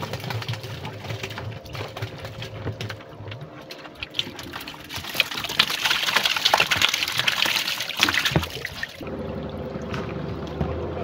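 Water pouring and splashing as a rubber bucket fish trap is lifted and tipped out into a wooden canoe, loudest around the middle. Near the end the splashing stops suddenly and a steady low hum takes over.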